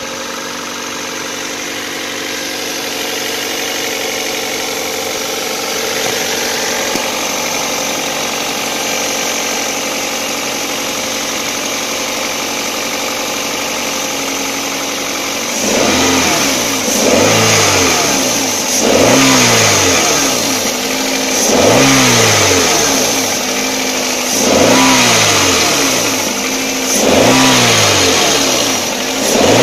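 2004 Toyota Corolla CE's 1.8-litre four-cylinder engine idling steadily, then from about halfway through it is revved repeatedly, about one rev every two and a half to three seconds, its pitch rising and falling each time.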